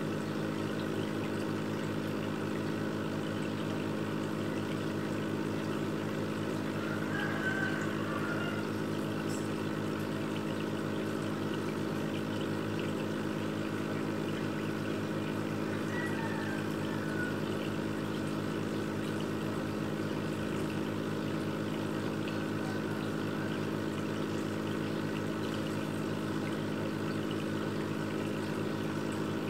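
Aquarium filter pump humming steadily, with water trickling and splashing into the tank.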